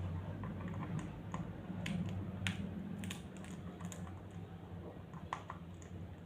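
Light clicks and taps at irregular spacing, a few a second, over a steady low hum.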